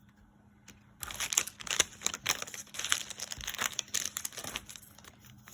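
Foil Pokémon booster pack wrapper crinkling in the hands as it is opened, a dense run of crackles starting about a second in.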